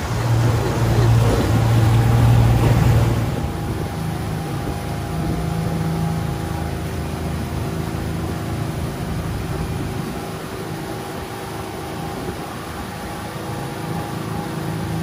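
Motorboat engine running steadily under way. For about the first three seconds a louder rush of wind and water rides over it, then it settles to a steadier, quieter hum.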